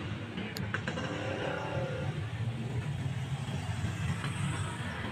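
Outdoor urban ambience: a steady low rumble of motorbike and road traffic, with a brief click under a second in.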